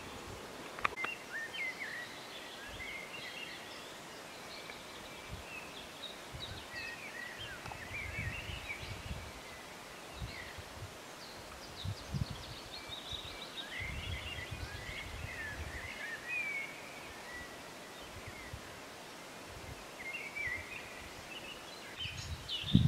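Songbirds singing in short chirps and trills, with a few low rumbles on the microphone and a sharp click about a second in.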